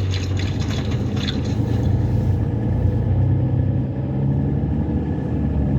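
Beko Ironfast washing machine running: a steady low motor hum with the rumble of the turning drum.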